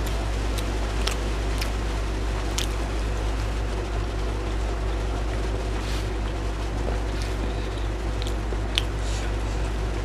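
Steady rain falling, an even hiss throughout, with a few sharp clicks scattered through it.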